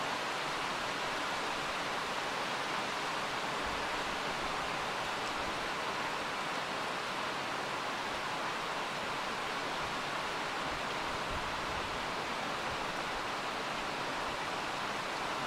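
Torrential rain from a sudden cloudburst, falling heavily as a steady, even rushing noise that does not let up.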